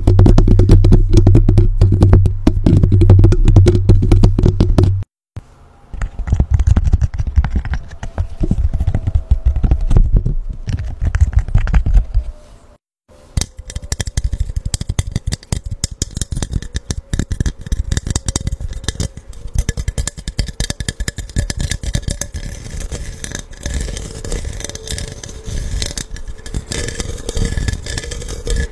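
ASMR tapping: rapid fingertip taps directly on a Blue Yeti microphone's mesh grille, loud with a heavy low thud. After two brief cuts come lighter, brighter rapid taps on a faceted, diamond-patterned clear cup, with a faint ring.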